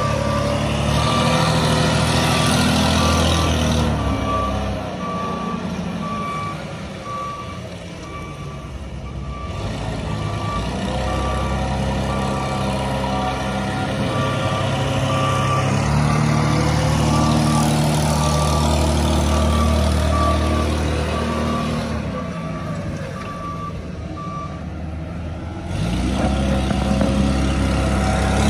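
Engine of a 2004 Toyota 7FGU45 propane forklift running and changing speed as it drives and manoeuvres, its backup alarm beeping steadily in two long stretches that stop a few seconds before the end.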